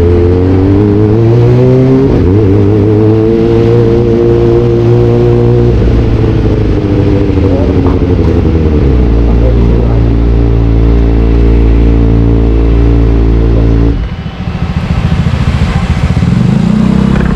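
Sport motorcycle engine revved and held high through an aftermarket exhaust that sounds too tame. The revs climb over the first two seconds, hold, ease down a little about six seconds in and hold steady again, then the throttle shuts about fourteen seconds in and it drops back to a low idle.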